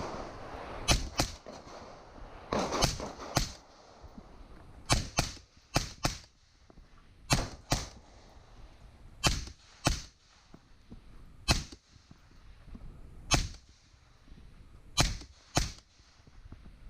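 Gunshots in a timed shooting string, mostly fired as quick pairs a few tenths of a second apart, with a second or two between pairs and a few single shots near the end.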